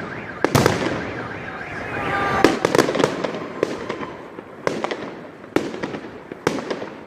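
Fireworks salute: aerial shells bursting in sharp bangs about once a second, with crackling between the bangs.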